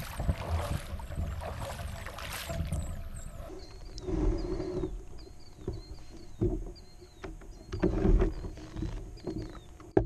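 Wind and water noise around a kayak on choppy water, with wind buffeting the microphone. About three and a half seconds in it turns suddenly quieter, and a bird repeats a short chirp about twice a second, with a few louder low calls underneath.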